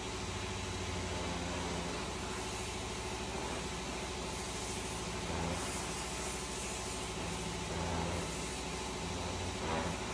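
Round-pad orbital sander running steadily against the rounded wooden tip of a propeller blade as it is shaped, with a steady whirring hum. It grows a little louder a few times as the pad bears harder on the wood.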